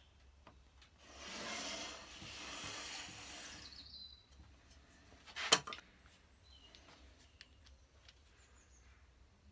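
Plywood rubbing and scraping on the bench for about three seconds as the parts are handled, then a single sharp knock about five and a half seconds in.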